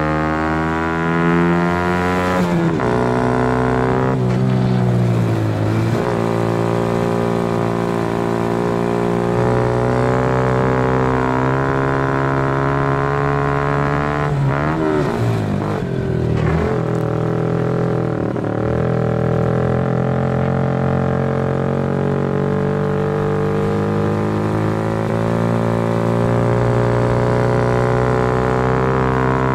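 Honda Cub race bike's single-cylinder four-stroke engine running hard at high revs, heard from a camera mounted on the bike. The revs dip and climb back briefly near the start, around five seconds in and around the middle, and otherwise hold steady.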